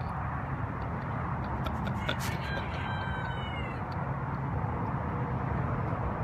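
Steady background noise with a few faint clicks, and a short, slightly falling high-pitched animal call about two and a half seconds in, under a second long. No sneeze falls in this stretch.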